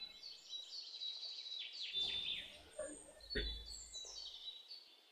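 Faint chirping of small birds in the background, with a single knock about three and a half seconds in, likely a plastic spatula striking the frying pan while stirring.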